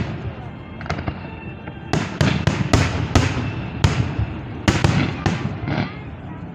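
Fireworks display: about ten sharp aerial shell bursts at irregular intervals, coming thickest between two and five seconds in.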